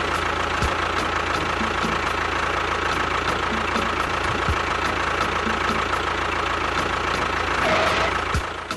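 A motor running steadily with an even hum, then dying away near the end.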